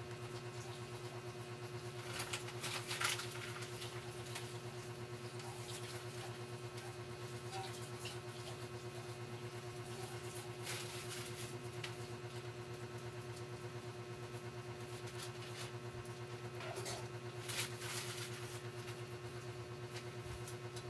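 A steady low electrical hum runs throughout, with scattered clicks and taps of laptop parts and tools being handled. The handling is loudest about two to three seconds in and again around seventeen to eighteen seconds.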